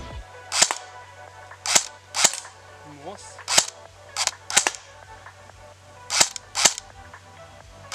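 Electric airsoft M4A1 rifle (AEG) firing single shots on semi-auto: about eight sharp reports, some alone and some in quick pairs, at uneven spacing.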